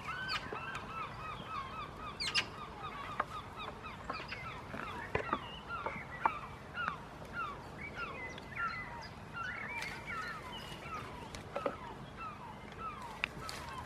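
A flock of birds calling continuously, many short chirping and honking notes overlapping, with a few sharp clicks in between.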